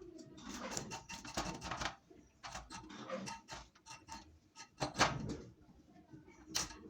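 Kitchen utensils being handled: irregular clicks, knocks and short scrapes, with a sharper knock about five seconds in.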